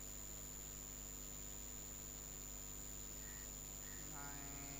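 Low steady electrical hum and hiss with a thin high whine. About four seconds in, a short pitched sound with several overtones begins.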